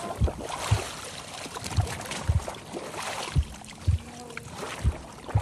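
Water sloshing and lapping against a boat at sea, with irregular low knocks about every half second to a second.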